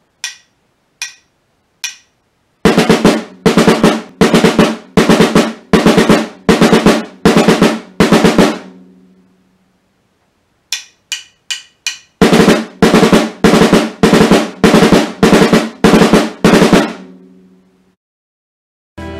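Snare drum played with sticks in the single-stroke-4 rudiment: quick groups of alternating right-left strokes that repeat for about six seconds, with the drum ringing after them. The pattern is played twice, and each time four light stick clicks count it in.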